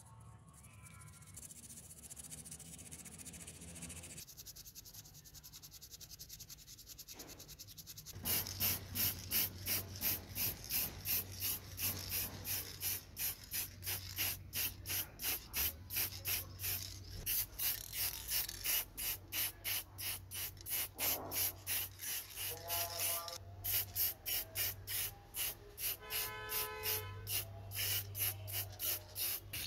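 Aerosol spray paint can being shaken, its mixing ball rattling in a steady rhythm of about three strokes a second. The rattling starts about eight seconds in, after a quieter stretch.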